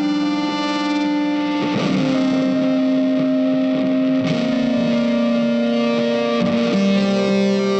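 Instrumental background music: held chords that change every two to three seconds, with no voice.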